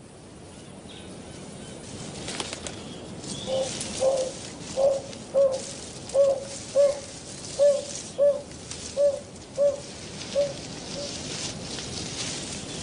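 Narina trogon calling: a series of about a dozen low, dove-like hoots, mostly in pairs, that build up and then fade away near the end. A steady high hiss of forest background runs beneath them.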